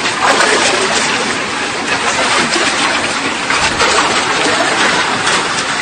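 Heavy rain pouring down, a loud steady hiss.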